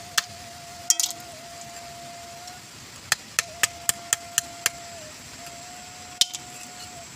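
Sharp knocks of a cleaver blade chopping the pointed tips off freshwater field snail (tutut) shells on a piece of broken clay roof tile, the step that lets the meat be sucked out later. There are single chops near the start and about a second in, then a quick even run of about seven chops at about four a second a little after three seconds in, and one more a little after six seconds.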